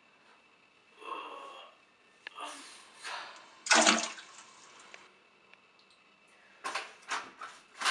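A person sighing heavily in a small tiled bathroom: a long exasperated sigh with a loud breath out about four seconds in, then a run of short breathy huffs near the end.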